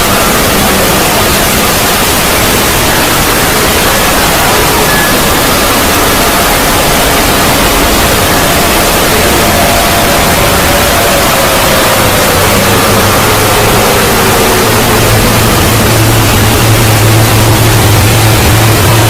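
Loud, steady full-range hiss of a 'void' ambient sound effect, with faint tones drifting beneath it. A slow falling tone passes through the middle, and a low hum comes in about two-thirds of the way through, growing stronger near the end.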